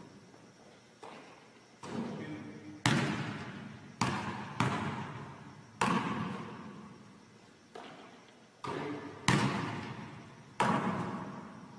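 A basketball bouncing on a gym floor during shooting practice: about ten sharp bangs at irregular intervals, each ringing on in the echo of the large gym.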